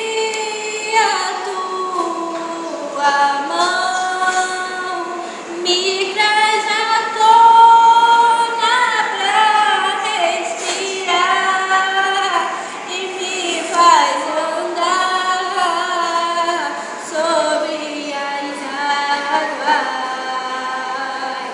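A single female voice singing a melody, with long held notes and slides between them; the loudest held note comes about seven to eight seconds in.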